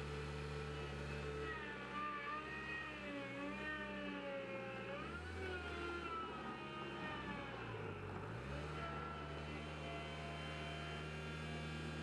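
Skid steer loader working: its engine runs steadily with a whine that rises and falls, and the engine pitch dips briefly twice, about five and eight seconds in, as it comes under load.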